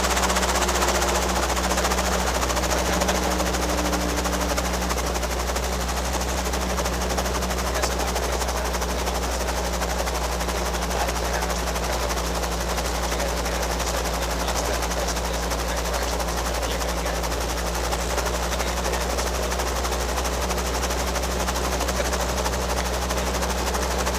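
Robinson R22 helicopter's rotor and piston engine running steadily, a rapid blade chop over a constant low drone. A faint tone slides down in pitch over the first few seconds.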